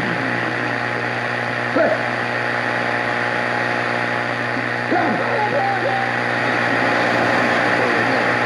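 Shortwave radio reception on a Grundig Satellit 750 tuned to 7780 kHz: a steady hiss of static with a low hum. Faint fragments of a preacher's voice break through under the noise, which is the sign of a weak signal.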